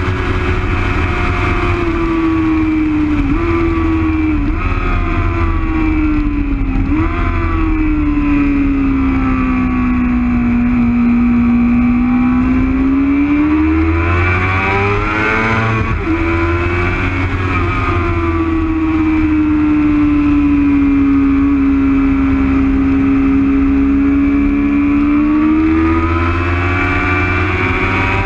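Sport motorcycle engine at track speed, heard from a camera mounted on the bike: its note sinks slowly and climbs back twice through the corners, with a few short jumps in pitch in the first seven seconds, over steady wind rush.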